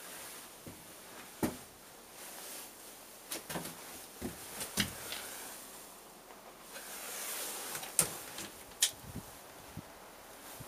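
Scattered light knocks and clicks, about half a dozen sharp ones spread over the stretch, over a low hiss, with a soft rushing noise swelling about two-thirds of the way through.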